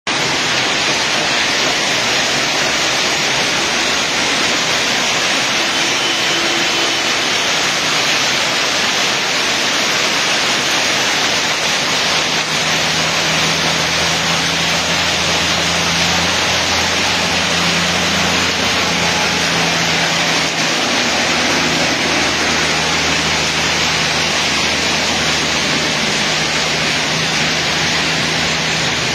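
Hailstorm: dense hailstones pelting the ground and roofs in a loud, steady rush of noise. About halfway through, a low, steady engine hum joins in underneath.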